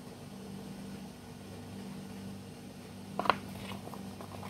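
Steady low hum of a running electric fan, with two sharp knocks about three seconds in as things are handled on a kitchen counter, then a few lighter clicks.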